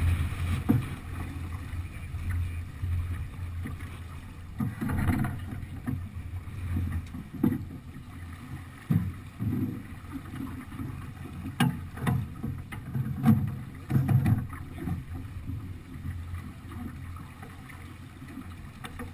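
Water rushing along the hull of a Beneteau sailing yacht under way, with wind on the microphone. There are a few sharp knocks or clicks around the middle.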